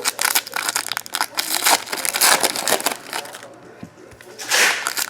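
Trading-card pack wrappers being torn open and crumpled by hand, a dense crackling in irregular bursts with a short lull about three and a half seconds in.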